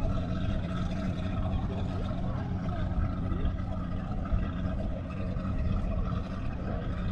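Power boat's outboard motor running steadily as the boat cruises, a continuous even drone.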